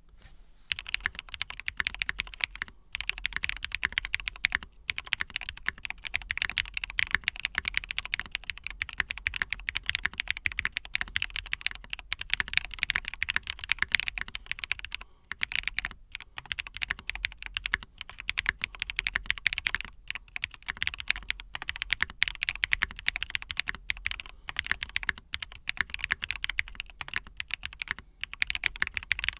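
Continuous fast typing on a newly built S100 mechanical keyboard as a typing sound test: a dense stream of keystrokes with a few brief pauses.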